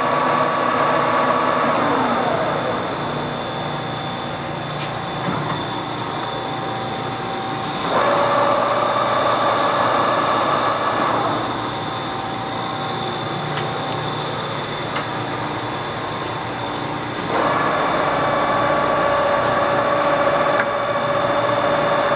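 TOS SN40c lathe running under power with a steady gear whine. Twice the drive is shut off and winds down with a falling whine, and twice it starts up again abruptly.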